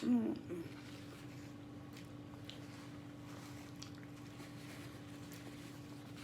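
Faint chewing and utensil sounds of someone eating fettuccine Alfredo, over a steady low hum in a quiet room, with a short voiced sound right at the start.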